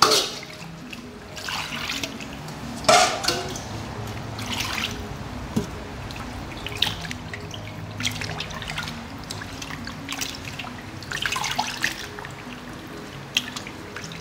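Hands swishing and rubbing small raw fish in water in a stainless steel bowl, with irregular splashes and drips, over background music.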